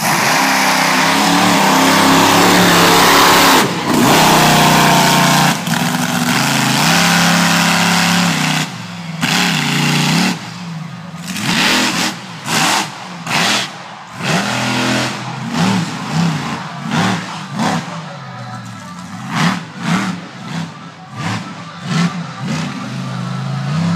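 Monster truck engine running loud and steady, then blipped in a long string of short revs, about one or two a second, through the second half.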